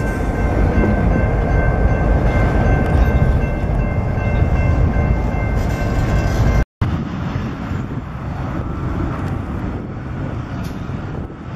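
Freight train of tank cars rolling slowly past close by: a heavy rumble of wheels on rail with a steady high squeal over it. The sound cuts off abruptly about seven seconds in, then a fainter, more distant rumble of the shortline switcher locomotive and its train follows.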